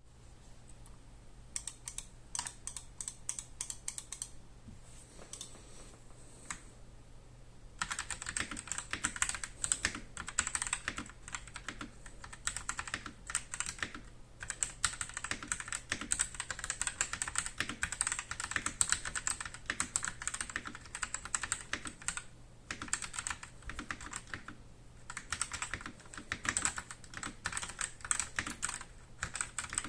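Typing on a CIY X77 tenkeyless mechanical keyboard with CIY Red linear switches. Separate keystrokes at first, then a lull with only a few clicks, then fast continuous typing from about eight seconds in, broken by two brief pauses near the end.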